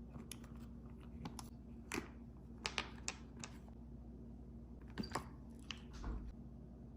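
A series of light, irregular clicks and taps, about a dozen, the loudest clustered about two, three and five seconds in, over a faint steady hum.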